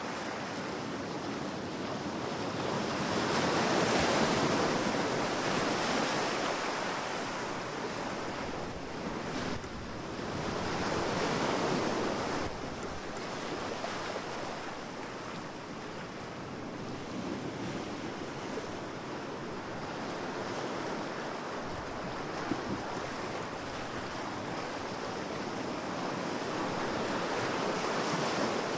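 Ocean waves breaking and washing on a beach, the surf swelling and easing every several seconds, with some wind noise.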